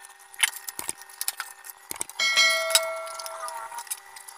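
A few light clicks, then about two seconds in a bell-like chime with several ringing pitches that fades out over about a second and a half. This is the click-and-bell sound effect of a subscribe-button animation.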